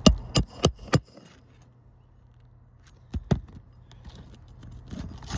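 Hammer blows on an asphalt shingle roof during a shingle repair: four sharp strikes in quick succession, a pause of about two seconds, then two more.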